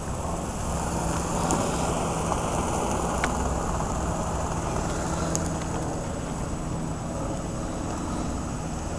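East German army (NVA) green smoke grenade burning, with a steady rushing hiss as it pours out smoke.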